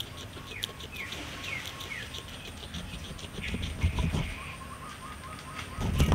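Guinea pig chewing para grass stems with quick crisp crunches. Birds chirp in the background with short falling calls. Two dull low thumps, about four seconds in and near the end, are the loudest sounds.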